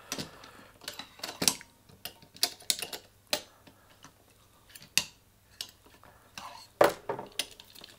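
A steel knife blade prying at a stuck plastic part inside an opened 2.5-inch hard drive, making irregular clicks, taps and scrapes against the metal case. The loudest click comes near the end.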